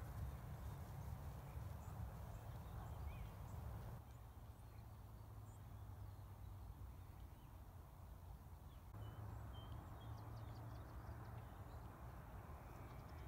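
Faint open-air field ambience: a steady low rumble with a few faint, scattered bird chirps. The background changes abruptly about four seconds in and again about nine seconds in.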